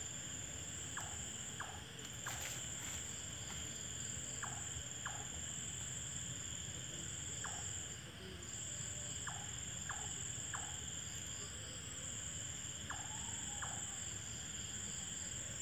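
Night insects, crickets, trilling in a steady high continuous chorus that drops out for a moment a couple of times. Over it come short, sharp calls, mostly in pairs, every second or two.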